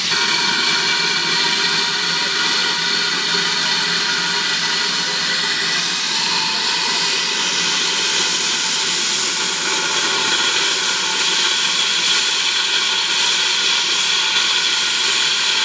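Industrial saddle-tank steam locomotive blowing off steam: a loud, steady hiss from its safety valves, the sign that the boiler is at full working pressure.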